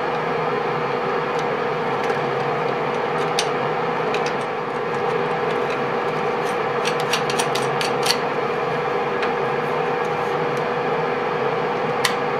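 Steady mechanical hum of a running fan or motor, with a steady tone and no change in level. Light clicks of small parts or tools being handled come through it, with a quick run of them about seven to eight seconds in.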